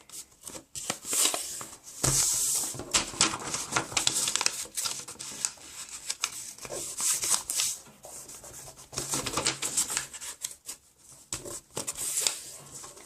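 A sheet of paper being folded and creased by hand: irregular rustling and rubbing strokes as fingers press and run along the folds.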